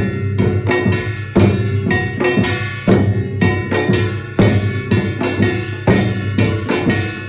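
Samulnori percussion ensemble playing a fast, uneven rhythm. A kkwaenggwari (small hand-held brass gong) is struck with a ringing metallic tone over janggu hourglass drums and a buk barrel drum.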